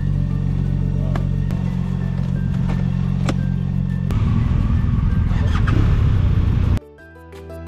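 BMW R1250 motorcycle's boxer-twin engine running at a steady speed while riding, growing louder and rougher about four seconds in. It cuts off abruptly near the end, where music starts.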